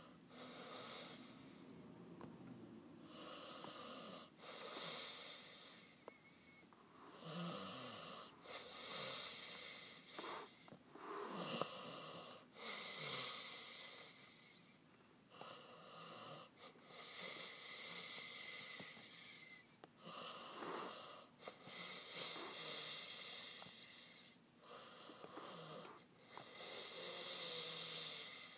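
A person breathing close to the microphone: slow, audible in-and-out breaths, roughly one every two to three seconds.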